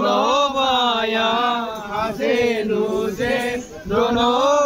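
A man chanting in long, wavering held phrases, pausing briefly twice.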